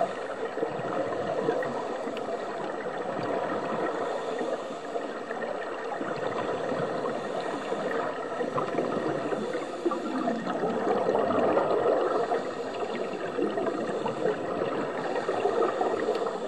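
Scuba regulator exhaust bubbles gurgling, heard underwater as a continuous bubbly rush that swells a little about two-thirds of the way through.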